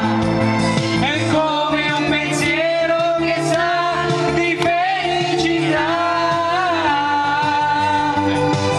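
A man and a woman singing into microphones, amplified over accompanying music with a moving bass line.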